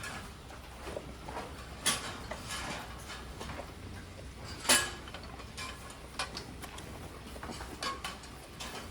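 Jersey cows eating hay at a barn feed rail: scattered clicks and knocks, two of them louder, about two seconds in and just under five seconds in, over a low steady hum.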